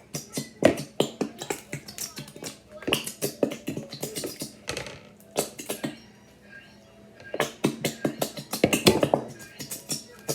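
Sticky homemade glue slime being kneaded and stretched by hand, making quick wet clicks and pops with a short lull about six seconds in; the slime is still sticky. Background music from a TV runs underneath.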